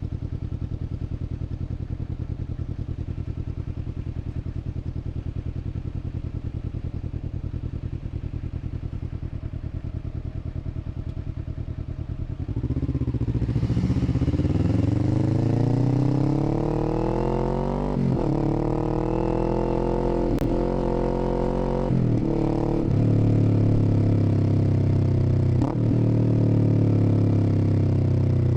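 Kawasaki Z400's parallel-twin engine idling steadily, then pulling away about twelve seconds in: the revs climb and drop back at each of several upshifts, and near the end the engine pitch eases down slowly.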